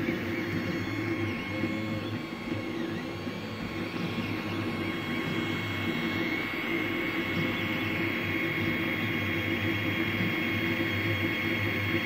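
Tevo Tornado 3D printer running a print: its stepper motors whine in short tones that rise and fall as the hotend carriage moves, over the steady hum of the cooling fans.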